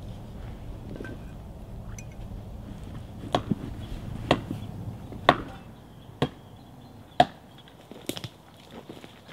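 A series of six sharp knocks or cracks, roughly a second apart, beginning about three seconds in, followed by a few fainter clicks near the end. Under them is a low steady rumble that stops about two-thirds of the way through.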